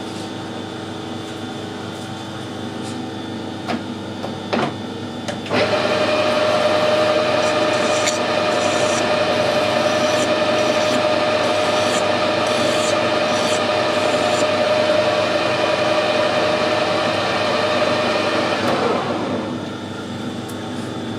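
Metal lathe starts about five seconds in and runs steadily with a clear whine while a hand file is held against the spinning steel bar in the collet chuck, taking off a burr with light scratchy strokes. Near the end the lathe is switched off and runs down, its pitch falling.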